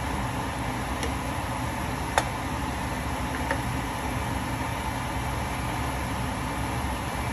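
Vegetables stir-frying in a nonstick skillet: a steady rushing noise, with a few light clicks of the spatula against the pan, the sharpest about two seconds in.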